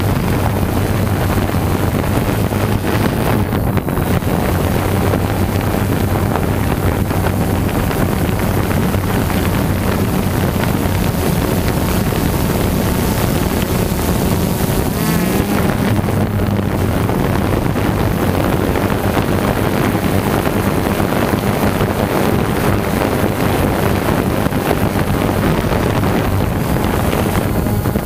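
Drone's propellers whirring steadily, with wind rushing over the microphone. The pitch slides briefly about halfway through and again near the end.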